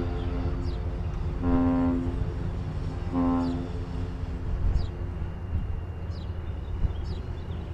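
Ship's horn on the lake freighter CSL Assiniboine sounding a salute: the tail of a long blast, then two short blasts.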